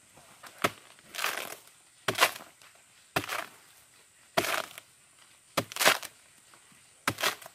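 A machete chopping repeatedly into the soft, rotting pith of a felled sago palm trunk. There are about seven blows, roughly one a second. Each is a sharp crack followed by a short crunching rasp as the fibrous wood splits apart.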